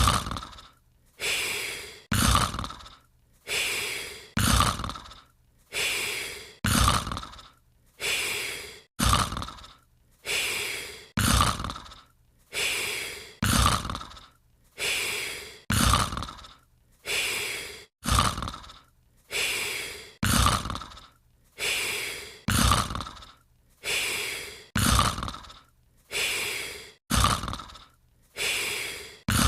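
Cartoon snoring sound effect: a longer breath followed by a shorter one, repeating in a steady, even loop about every two and a quarter seconds.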